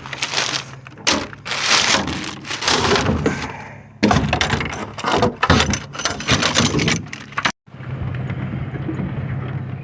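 Irregular rustling, scraping and clattering of gear being shifted around in a pickup truck bed. After an abrupt break about seven and a half seconds in, a steady low hum of the truck's engine running.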